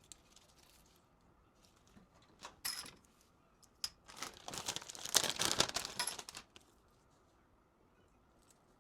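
Blind-bag packaging being torn open and crinkled by hand: a short crackle about two and a half seconds in, a click, then a longer, louder stretch of crinkling and tearing from about four seconds in.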